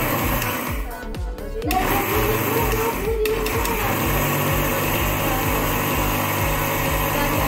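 Electric mixer grinder running with a stainless steel jar, grinding dry moth bean (matki) dal into coarse flour. The motor drops off briefly about a second in and again around three seconds, then runs steadily. Background music with a beat plays underneath.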